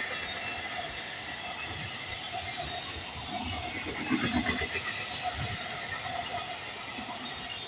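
A freight train rolling past at a level crossing: a steady rush of wheel and rail noise from the passing wagons, with some light wheel squeal and a few low thuds.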